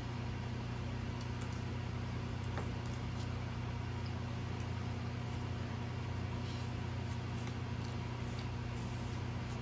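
Steady low hum that does not change, with a few faint light clicks scattered through it.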